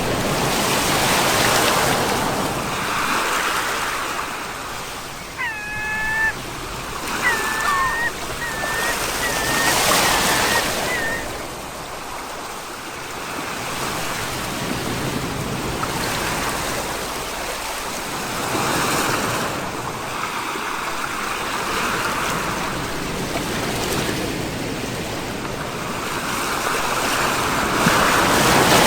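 Sea surf washing in and drawing back in slow swells, cresting about every nine seconds. About six seconds in, an animal gives a short run of high, cat-like cries.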